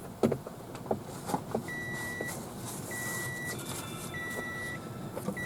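The car's dashboard warning chime beeping with the key in the ignition: one steady short tone, repeating about once every second and a quarter. A few light clicks and knocks come in the first second and a half.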